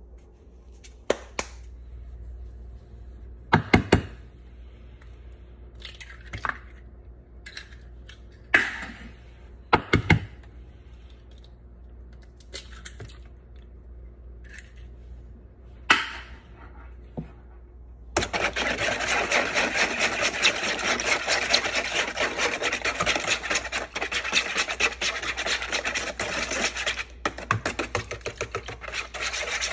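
Scattered sharp taps and knocks as eggs are cracked into a plastic mixing bowl. About two thirds of the way through, a wire whisk starts beating the egg mixture, a fast, steady scraping and rattling against the plastic bowl.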